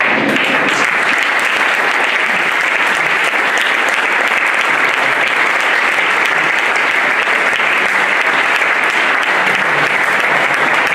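Audience applause, breaking out all at once and holding steady.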